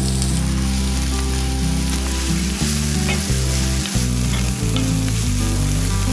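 Chopped onions sizzling as they fry in fat in a nonstick pan, with a wooden spatula stirring them through. The sizzle is a loud, steady hiss.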